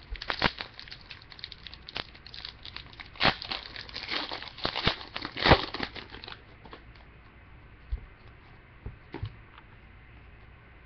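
A pack of trading cards torn open by hand, its plastic wrapper crinkling and crackling as the cards are pulled out. Dense, sharp crinkles for about the first six seconds, then only a few scattered clicks.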